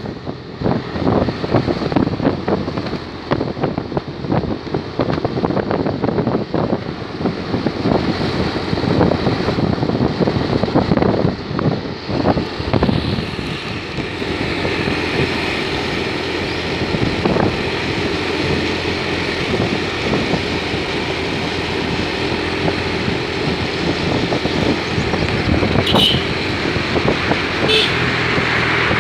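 Wind buffeting the microphone of a moving vehicle over its running engine, gusty at first, then a steadier engine drone from about halfway through. Two short high beeps come near the end.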